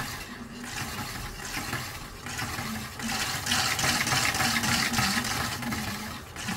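Small electric gearbox motor running with a faint low hum that wavers in pitch under a rushing hiss, louder from about three seconds in. It is straining to turn a 3D-printed turbo impeller through tight plastic gears, a sign of too little clearance.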